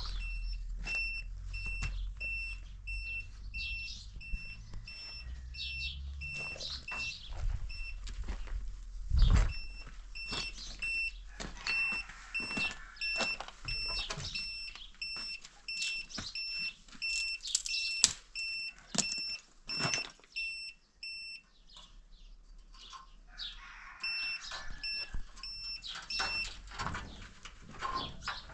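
A high electronic beep pulsing rapidly and evenly, stopping twice for a few seconds. Irregular knocks and clicks sound throughout, with a low rumble in the first several seconds and one loud thump about nine seconds in.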